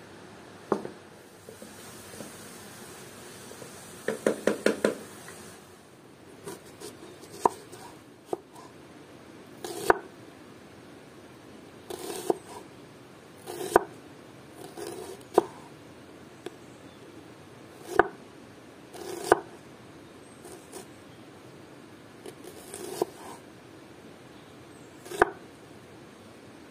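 Knife chopping on a cutting board: single sharp cuts every second or two, with a quick run of about six cuts about four seconds in.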